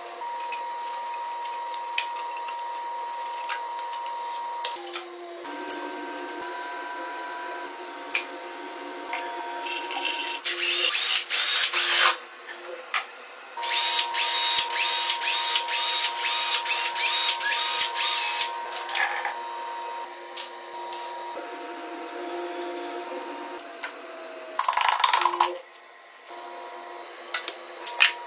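Cordless drill spinning out the screws of a Honda CG125 engine's side cover in several short runs, the longest lasting about five seconds in the middle, with small metal clicks of parts being handled between them. A faint steady hum of a few tones sits underneath throughout.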